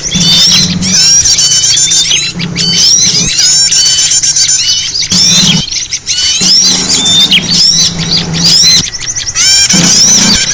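Loud, dense chorus of many small birds chirping and twittering over one another, a bird-trapping lure recording, with a low hum underneath.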